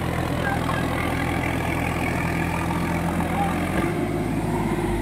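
Sonalika 4x4 tractor's diesel engine running under heavy load, hauling a loaded trolley through deep mud; its note shifts about four seconds in.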